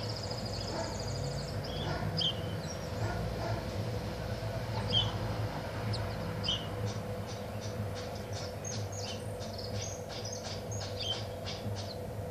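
Caged songbird singing in short high chirps and brief trills, breaking into a fast run of sharp, clipped notes from about seven seconds in: the rapid-fire "machine-gun" (metralleta) song. A steady low hum lies underneath.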